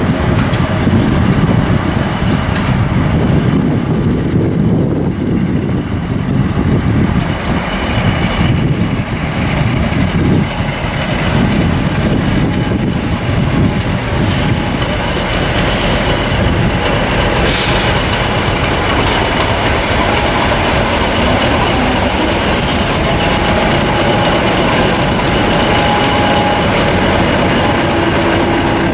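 English Electric 16-cylinder diesel engine of a Class 50 locomotive running steadily and loudly.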